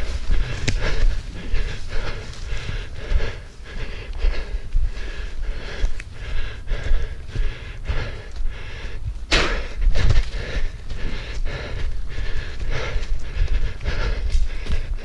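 A runner panting hard, quick breaths repeating in a steady rhythm, over the thud and rustle of running footfalls.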